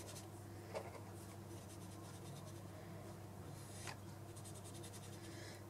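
Water brush dabbing and stroking brown watercolour onto sketchbook paper: faint soft scratchy brush strokes, with a light tap about a second in and another near four seconds, over a low steady hum.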